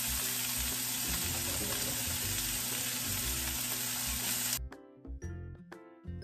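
Pork belly cubes sizzling as they start to fry in a hot pan with no added oil, rendering their own fat, over soft background music. The sizzling cuts off suddenly about four and a half seconds in, leaving only the music.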